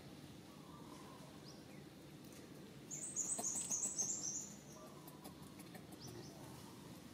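A bird gives a quick run of about eight high, sharp chirps lasting a little over a second, in the middle; a few fainter single high chirps come before and after.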